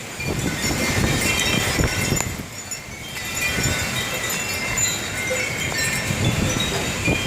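Wind chimes tinkling irregularly in gusty storm wind, with wind buffeting the microphone underneath.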